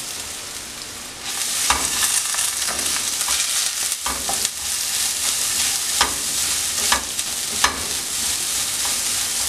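Crushed coconut paste sizzling in hot oil in a nonstick pan while a wooden spatula stirs it, with scrapes and light taps against the pan about once a second. The sizzle grows louder about a second in, when the stirring starts. The paste is being fried until its raw taste is gone.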